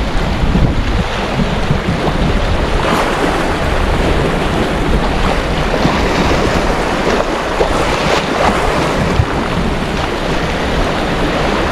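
Sea waves washing and breaking over shoreline rocks, a steady rushing of surf, with wind buffeting the microphone.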